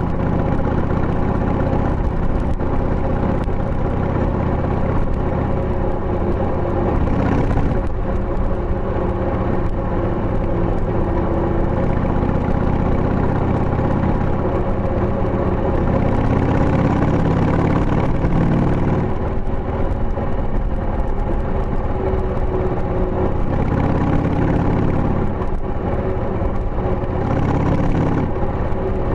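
Harley-Davidson Sportster 883 (2000) air-cooled 883 cc Evolution V-twin running on the road through tapered mufflers fitted with baffles, heard from close beside the engine. The engine note is steady, with a deeper, fuller stretch twice in the second half.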